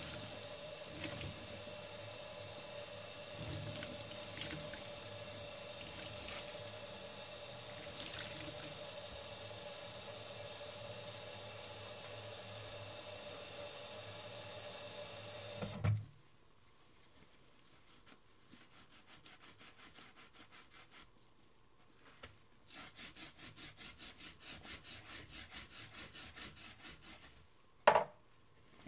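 Tap water running in a steady stream onto soapy sponges in a foam-filled stainless steel sink, cut off suddenly after about sixteen seconds with a thump. Then soft, rhythmic squishing of a soapy sponge being pressed, about three squeezes a second, and a sharp knock near the end.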